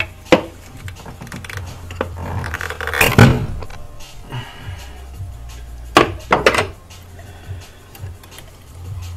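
Clicks and knocks of a car fuel filter and its fittings being worked free of the mounting bracket by hand. A loud bump about three seconds in is a hand striking the camera, and more knocks follow at about six seconds. Background music plays underneath.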